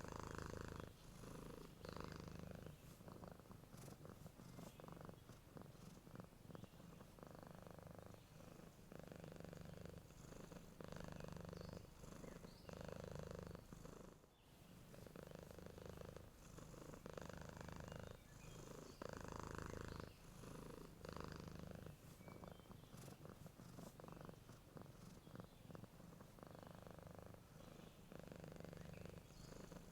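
Domestic cat purring softly and steadily, the purr swelling and easing in alternating stretches of about a second as the cat breathes in and out, with a brief lull about halfway through.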